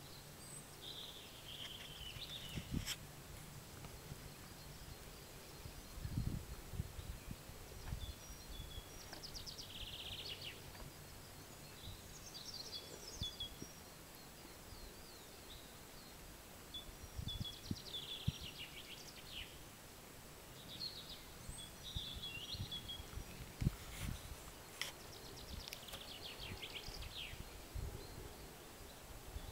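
Songbirds singing in short chirping phrases every few seconds over faint outdoor background noise, with occasional low rumbles and a few sharp clicks.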